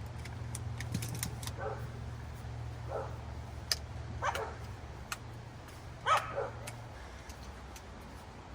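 A dog giving short yips, four of them spread a second or more apart, over a low steady hum that stops near the end.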